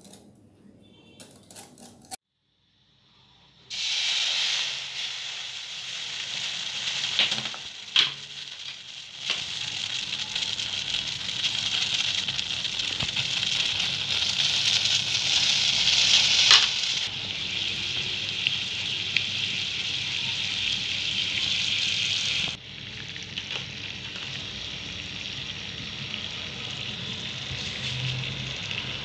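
A wire whisk briefly clinks in a glass bowl, then after a short gap sugar and water start sizzling and bubbling steadily in a stainless steel pan, cooking down into caramel as the syrup turns golden. The sizzle, with a few sharp pops, drops quieter about three quarters of the way through.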